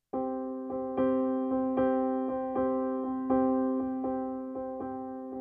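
Background music: a piano-like keyboard playing slow, gently struck notes over a sustained chord, beginning abruptly from silence.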